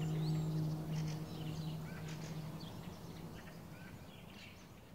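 Birds chirping over an outdoor ambience while a low, sustained ringing tone from the closing music dies away in the first two or three seconds; the whole sound fades out steadily.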